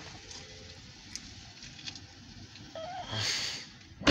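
Quiet car-cabin background hiss with a few faint ticks; about three seconds in, a brief faint wavering tone and then a short breathy noise close to the microphone.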